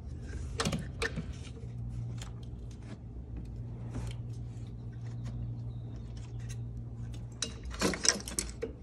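Fuel rail and injectors of a Coyote V8 being worked free of their O-ring seats and lifted out of the intake manifold: scattered clicks and knocks of metal and plastic parts, with a louder clatter near the end. A steady low hum runs underneath.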